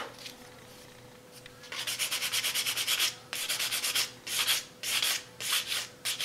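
Sandpaper rubbed lightly in quick back-and-forth strokes, about four a second, over the white plastic butt-plate spacer of a rifle stock to scour off the aged grime. The strokes start after a short pause about two seconds in.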